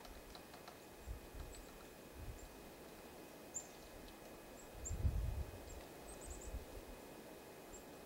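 Faint, short, high-pitched chips of small songbirds, scattered and irregular. Low rumbles rise and fall under them, the loudest about five seconds in.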